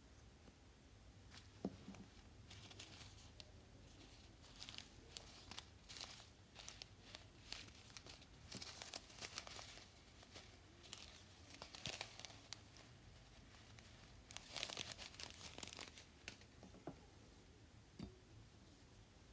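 Slime being squeezed and poked by hand, giving quiet crinkling and crackling in irregular bursts with many small sharp pops, thickest in the middle and again a little past two-thirds of the way through.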